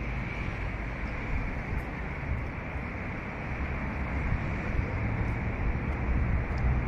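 Steady hum of city traffic on a busy road below, with wind buffeting the microphone as a fluttering low rumble.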